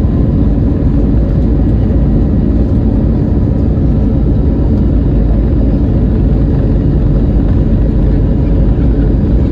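Steady, loud jet engine and airflow noise inside the cabin of an Airbus A321neo, a deep rumble with a faint steady whine above it.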